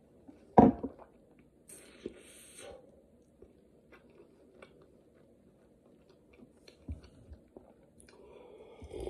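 Close-up eating and drinking sounds: a man sipping from a ceramic mug and chewing, with a short loud knock about half a second in, soft mouth and chewing noises and small clicks, and another slurping sip near the end.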